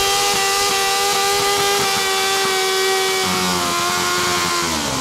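Sport motorcycle engine held at high revs during a burnout, its rear tyre spinning in place on the pavement; near the end the revs drop off as the throttle is let go.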